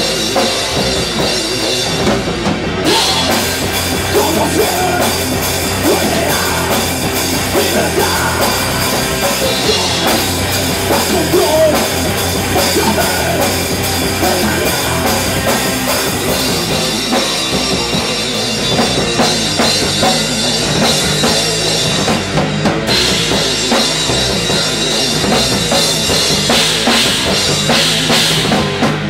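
A rock power trio playing live and loud: electric guitar, bass guitar and a drum kit with cymbals, all running without a break.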